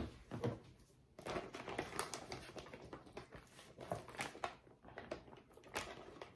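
Plastic bag of raw chicken crinkling and rustling as it is rummaged with metal tongs, with scattered light clicks and knocks.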